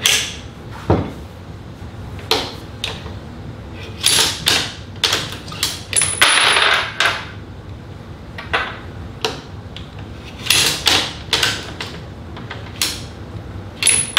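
Ruger Precision Rifle's bolt worked back and forth several times in quick succession, stripping rounds from a fully loaded American Rifle Company (ARC) magazine and ejecting them: repeated sharp metallic clacks and short sliding scrapes, with cartridges clinking as they come out.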